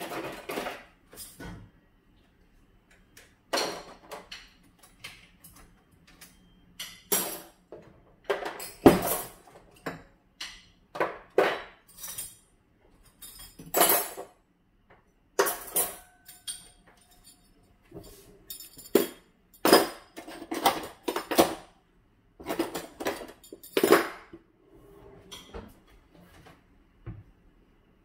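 Dishes and cutlery being handled: irregular clinks and clattering knocks, some ringing briefly, spread through the whole stretch.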